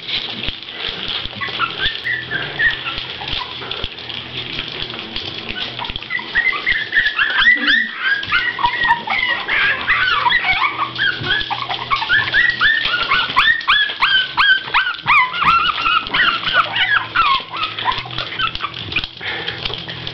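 A litter of month-old Boston Terrier puppies whining and squeaking, many short high-pitched cries overlapping, growing busier a few seconds in and thinning near the end.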